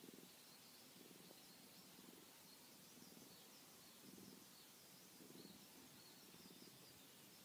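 Faint cat purring, swelling and fading about once a second with each breath, with faint high chirps in the background.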